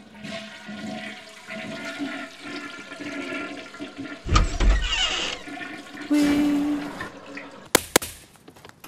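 Toilets flushing: a steady rush of water with a louder surge about four seconds in and another about six seconds in. Near the end come two sharp knocks on a door.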